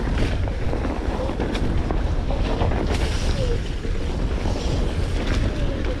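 Wind buffeting the microphone while a rider moves fast on a Onewheel GT electric board over a dirt trail: a steady low rumble with scattered small knocks, and a few faint short whines that rise and fall.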